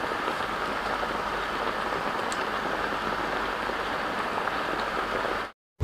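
Steady, even hiss like rain falling, cutting off suddenly near the end.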